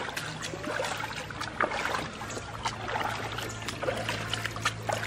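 River water trickling and lapping around a bamboo raft, with scattered small knocks and splashes. A steady low hum runs underneath.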